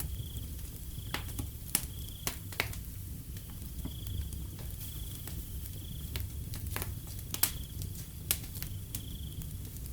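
Wood fire crackling, with several sharp pops and snaps over a low steady rumble. Crickets chirp in short, evenly spaced high trills behind it.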